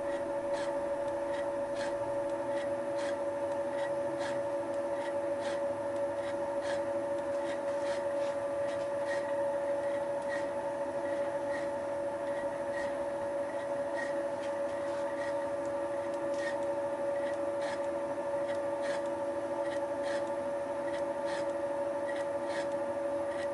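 Thiel Duplex 158 milling machine running a Wohlhaupter UPA5 facing and boring head: a steady geared whine in several pitches, with light, evenly spaced ticks a little more than once a second as the head feeds its cutter across the plastic housing in a facing cut.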